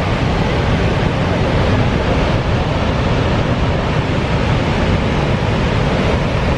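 Loud, steady rush of the Horseshoe Falls at Niagara, the falling water an even, unbroken noise, with wind buffeting the microphone.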